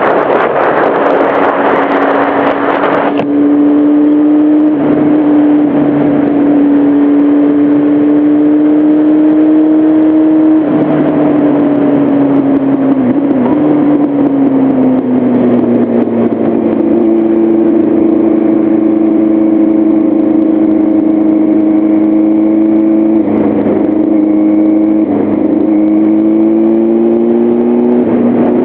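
Motorcycle engine running at a steady cruise, its pitch rising and falling gently with the throttle. A broad rush of wind noise covers the first three seconds.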